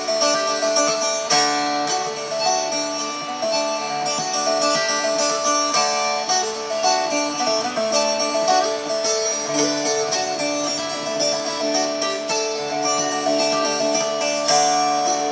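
Instrumental folk tune played on plucked string instruments, a steady stream of ringing melody notes over sustained lower notes.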